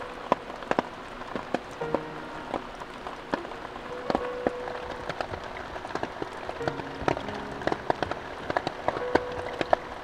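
Heavy rain from an approaching typhoon falling steadily, with many large drops landing as sharp taps. Soft background music notes play over it.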